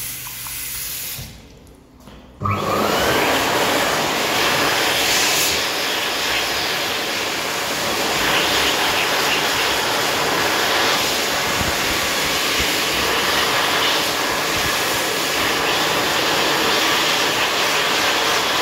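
Metlam hand dryer (Hokwang HK-JA) kicking in suddenly about two and a half seconds in and running at full power, a loud, steady rush of air. Before it, a tap running into a sink.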